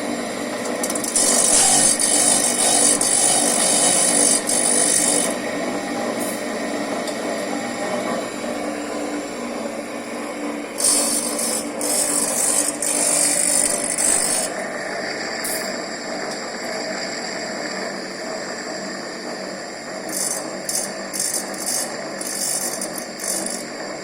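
Kucharczyk TYP2003 CNC saw-blade sharpener running, its grinding wheel hissing against the teeth of a circular saw blade over a steady machine hum. There are two long grinding passes of a few seconds each, then a run of short touches near the end.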